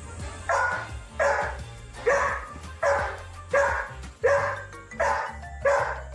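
Dog barking repeatedly in an even rhythm, about one bark every two-thirds of a second, over background music.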